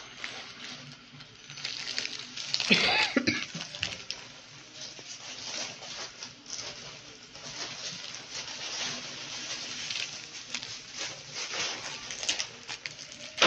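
Clear cellophane wrapping on candy baskets crinkling and rustling as it is handled, in uneven bursts, loudest about three seconds in.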